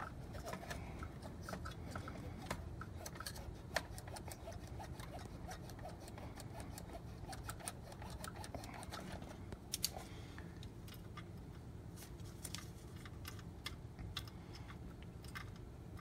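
Scattered small plastic clicks and handling noises as fiber-optic connectors and a plastic connector-cleaning cassette are handled, over a steady low hum.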